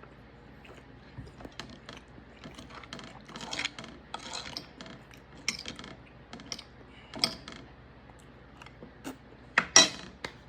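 Knife and fork clicking and scraping on a dinner plate in an irregular run of clicks and short scrapes, with the loudest clatter near the end.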